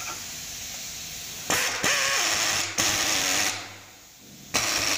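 Cordless drill-driver running in three short bursts, each shorter than the last, driving the top bolt of a front suspension fork leg.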